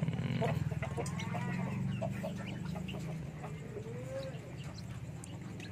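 Brooding Bangkok game hen clucking low and continuously as she is disturbed on her nest, with short high peeps from newly hatched chicks; the clucking grows slowly quieter.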